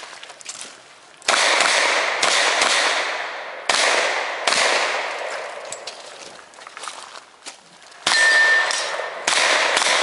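Smith & Wesson 610 revolver fired five times at uneven spacing, two shots close together and then a longer pause. Each shot has a long echoing tail.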